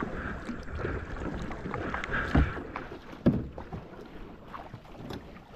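Kayak paddle strokes dipping and splashing in the water, with wind on the microphone. Two dull knocks stand out, about two and a half seconds in and again a second later.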